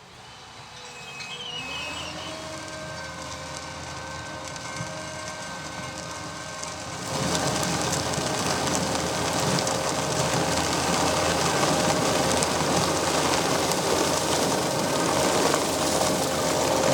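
Ropa Euro Tiger sugar beet harvester with its V8 engine running steadily, with a steady engine hum. About seven seconds in, the sound becomes abruptly much louder, with a dense machinery noise over the engine.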